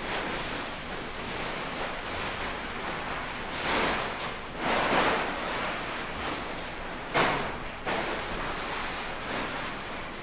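Large fabric costume pieces rustling and swishing as they are waved and handled, with louder rushes about four and five seconds in and a sharper one a little after seven seconds.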